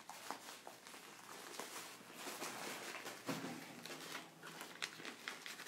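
Faint rustling and scattered small knocks of a phone being handled close to its microphone, with the sharpest knock a little after the middle.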